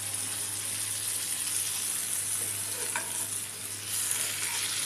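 Eggplant rounds stuffed with an egg mixture sizzling steadily in hot oil in a frying pan as they are turned over with a silicone spatula, with a small tap of the spatula about three seconds in.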